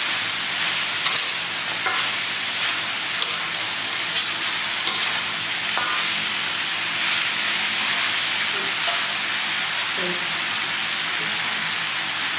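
Pork ribs, lemongrass and chillies sizzling loudly in a hot wok while a spatula stirs and tosses them, with scattered clicks and scrapes of the spatula against the pan.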